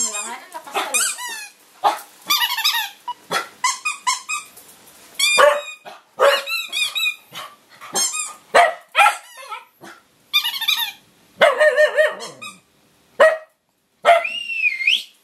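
Dog barking and yelping in rapid high-pitched bursts, again and again, with a drawn-out whine near the end.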